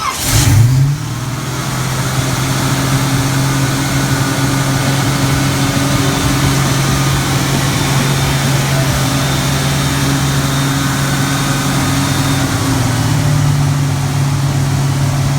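Freshly rebuilt Pontiac 455 V8 starting for the first time. It catches within about a second with a quick rise in revs, then runs steadily at a fast idle, held up for camshaft and lifter break-in.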